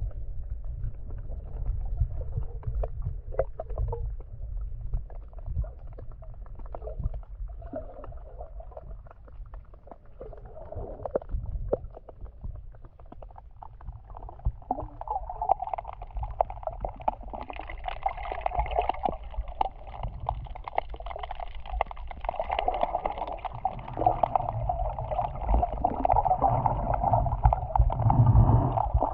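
Muffled sea water heard underwater: a constant low rumble of moving water with many small clicks and gurgles. A steadier, higher hum builds from about halfway through and grows louder toward the end.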